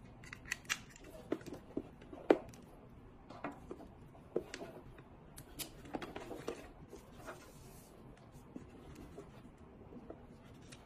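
Hard plastic parts of an LED face mask and its handheld controller clicking and knocking as they are handled and lifted out of their case, with the cable rustling. Irregular sharp clicks, the loudest about two seconds in, thinning out in the last few seconds.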